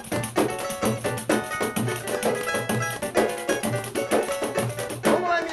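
Instrumental samba break: a cavaquinho playing over a steady percussion beat.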